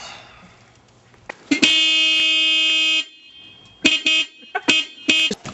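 Car horn honking: one long steady blast lasting about a second and a half, then a run of short honks near the end.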